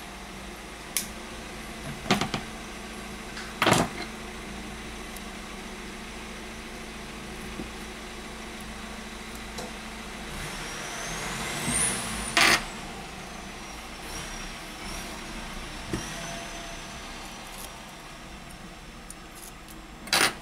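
Double-sided adhesive tape being peeled and pressed onto a smartphone battery with tweezers: scattered sharp clicks and taps, and a rustling peel swelling toward the middle. A thin high whistle glides up and then down near the middle, over a steady low hum.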